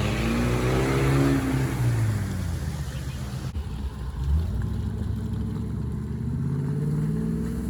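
4x4's engine revving under load, its pitch rising and falling, with a short thump about four seconds in.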